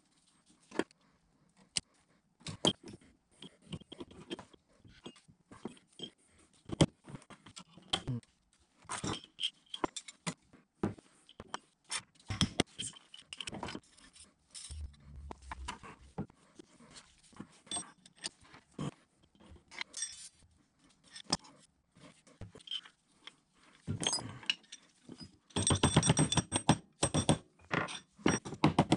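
Steel drill press parts clinking, knocking and scraping as they are handled and set down on a wooden bench: the coiled quill return spring, its housing and the spindle. Near the end comes a quick run of rapid metallic clicks with a ringing note.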